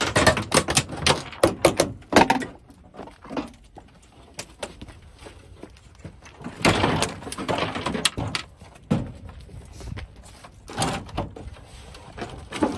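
Parts of a rear-projection television being pulled out and handled during disassembly: a quick cluster of knocks and clatters in the first two seconds, then scraping and rattling around the middle and again near the end.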